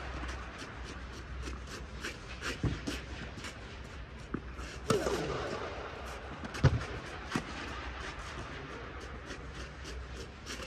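Tennis balls being struck with racket strings and bouncing on an indoor clay court, a string of sharp echoing hits and knocks with louder ones about five and seven seconds in, over a steady low hum.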